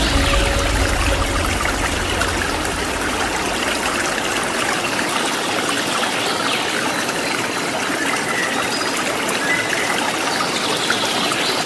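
Waterfall water running steadily, with a few short, high bird chirps now and then over the rush.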